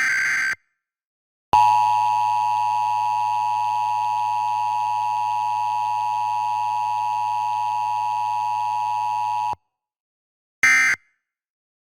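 Emergency Alert System required monthly test tones: a SAME header data burst ends about half a second in, then the steady two-tone EAS attention signal sounds for about eight seconds and cuts off abruptly. After a pause of about a second come two short end-of-message data bursts.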